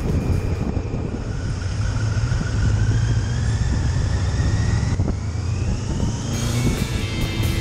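Kawasaki GPZ900R's liquid-cooled inline-four engine heard from the rider's seat, rising steadily in pitch as the bike accelerates, with a brief break about five seconds in before it rises again over a low road and wind rumble.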